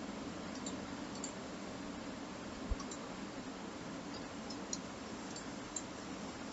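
Faint steady microphone hiss with a low hum, and a handful of soft, scattered clicks typical of a computer mouse being clicked, with one dull low thump a little under three seconds in.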